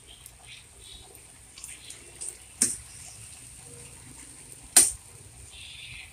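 Spatula stirring and tossing sliced cabbage and carrots in a frying pan, with small scrapes and rustles and two sharp clacks of the spatula against the pan, about two and a half and five seconds in.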